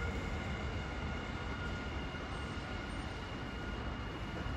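Nankai electric train running on the elevated track, a steady low rumble with a faint high tone above it.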